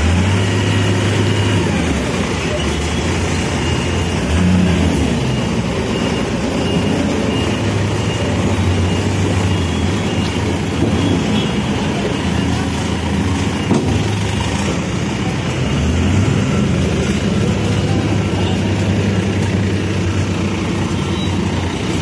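Diesel engine of a Manitou Terex backhoe loader running steadily while the front loader bucket is worked, revving up briefly about four seconds in and again around sixteen seconds.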